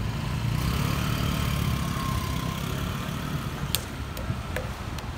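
A motorbike passing close by with its engine running, a low rumble with a faint whine that eases off after two or three seconds. A few sharp clicks follow in the second half.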